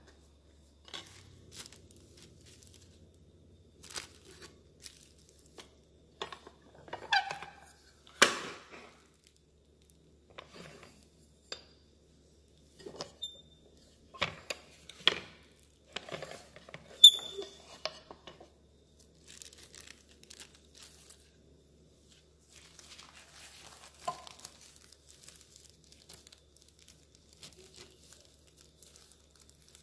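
Plastic sheeting crinkling and rustling as concha topping is pressed flat in an aluminium tortilla press and peeled off the plate, with a few sharp knocks from the metal press being handled.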